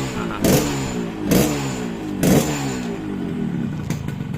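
A freshly tuned 2006 Yamaha RX-King's single-cylinder two-stroke engine is blipped on the throttle three times, about a second apart, the revs falling back after each. It then settles to a steady idle.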